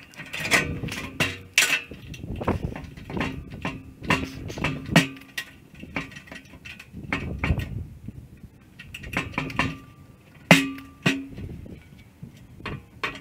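Irregular metal clanks and knocks on a large empty steel propane tank, several ringing briefly, as the clamps come off and the plasma-cut door is worked free on its freshly tacked hinges. The loudest clank comes about ten seconds in.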